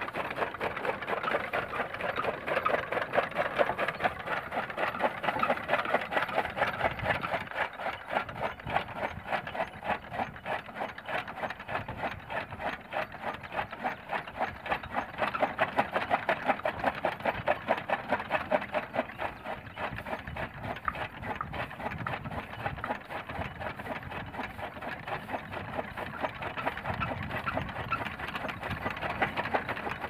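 Bull-powered gear-driven toka chaff cutter running, its gears and flywheel-driven blades making a fast, even, rhythmic clatter as green fodder is fed in and chopped.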